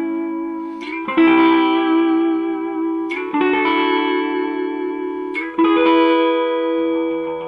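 Clean electric guitar played straight into a single-ended EL84 valve amp with a 6N3P preamp tube, with no effects, on its 170-volt low-voltage HT setting through an old RCA radio output transformer. Chords are strummed and left to ring, with a new chord about a second in, again after about three seconds and once more past five seconds.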